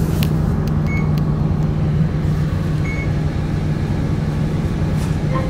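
A Geiyo Bus route bus's diesel engine running steadily under way, a low drone heard from inside the cabin. Two short high beeps sound, about a second in and about three seconds in.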